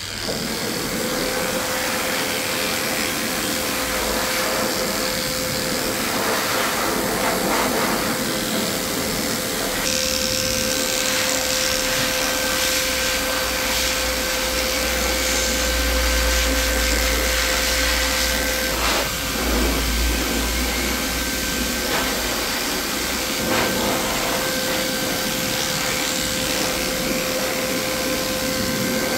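Electric dog clippers running with a steady buzz as they shave through a matted coat. The sound shifts about ten seconds in.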